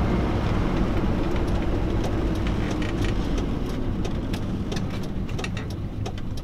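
MK1 Renault Trafic van's 2165cc engine and road noise heard from inside the cab while driving. The drone eases off gradually, with light ticks and rattles over it.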